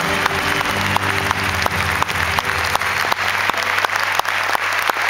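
Audience applauding with many sharp, scattered claps, over the band's last held chord, which dies away about four seconds in.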